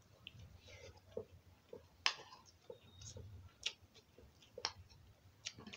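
A person chewing a mouthful of food, with scattered short wet clicks and smacks about every second.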